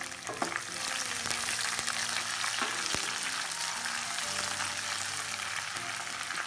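Fresh mint and coriander leaves, with curry leaves and dried red chillies, sizzling in hot oil in a nonstick kadai. The sizzle is steady and grows a little stronger about a second in, while the leaves are stirred with a wooden spatula, giving a few light clicks.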